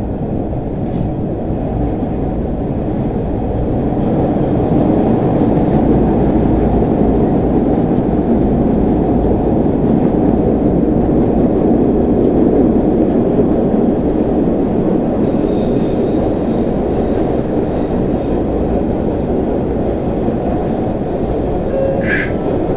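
MBTA Orange Line Hawker Siddeley 01200 series subway train running on the rails: a loud, steady roar that swells about four seconds in. A high wheel squeal cuts in about two-thirds of the way through.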